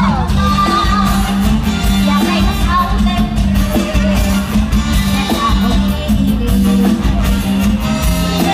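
Live Isan luk thung band playing a song loudly over a PA, with a heavy bass line and a steady drum beat, and a woman singing into a microphone.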